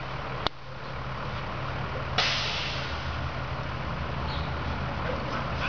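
A heavy vehicle's engine runs steadily as a low hum, with a click about half a second in. About two seconds in there is a sudden loud hiss, like an air brake releasing, that fades slowly.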